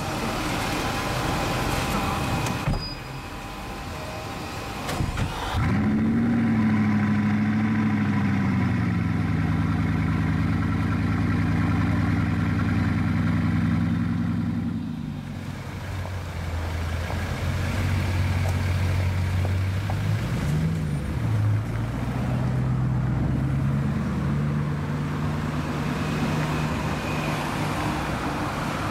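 Bugatti Chiron's quad-turbocharged 8.0-litre W16 engine starting about five seconds in: a sudden flare of revs that settles to a steady idle. A short blip of revs comes about twenty seconds in, and the engine then runs on steadily as the car moves off in traffic.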